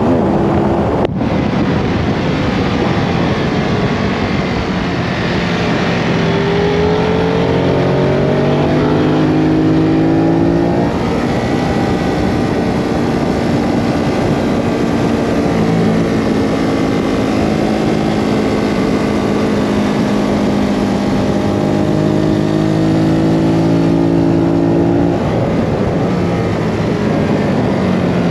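Ducati Hypermotard 939's L-twin engine running hard on track, its pitch climbing under throttle and dropping with gear changes and braking, about 11 seconds in and again near 25 seconds. A steady rush of noise lies under the engine throughout, and there is a brief click about a second in.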